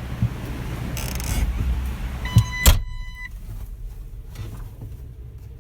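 Cab door of a New Holland L220 skid steer being shut with one loud thud about halfway through, while an electronic beep of about a second sounds. Before the door closes there is a rustle of someone climbing in; after it, the outside noise is muffled.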